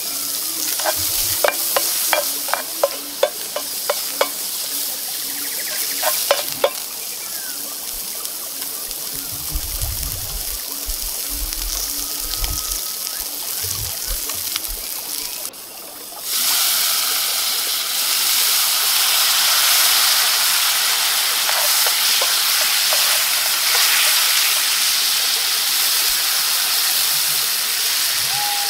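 Shallots, garlic and rosemary frying in oil in a hot cast iron skillet: a steady sizzle with a series of sharp ticks over the first few seconds. About halfway through, the sizzle jumps to a louder, fuller hiss as red wine goes into the hot pan and boils off in steam.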